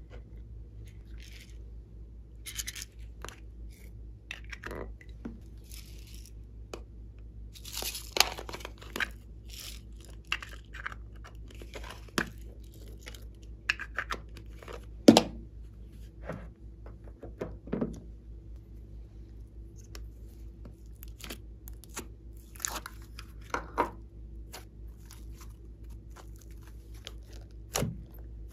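Small plastic toy containers being handled and opened, giving irregular clicks, crinkles and rustles, with one sharp plastic snap about halfway through. Soft clay is then pressed onto slime.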